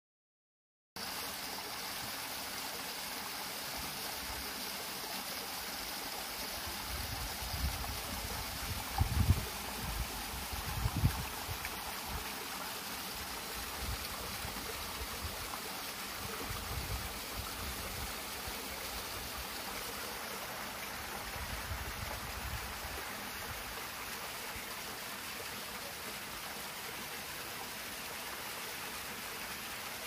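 A small garden waterfall trickling and splashing down a stone cascade into a shallow pool, making a steady rush of water that starts about a second in. A few low bumps stand out briefly, loudest around ten seconds in.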